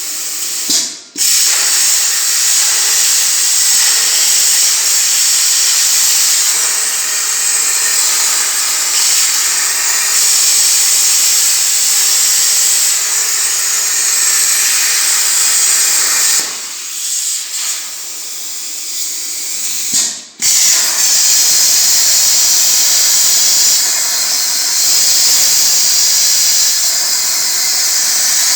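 Plasma torch of a CNC plasma cutting table cutting sheet metal: a loud, steady hiss. It cuts out sharply for a moment twice, about a second in and again about twenty seconds in, as the arc stops and restarts.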